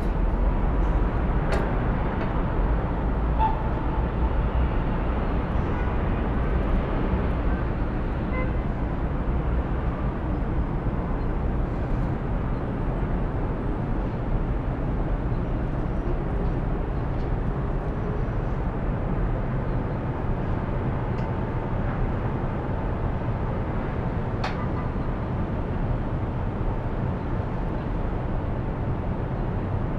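Steady city traffic noise rising from the streets below, a low, continuous rumble with a faint tone that comes and goes and a few small clicks.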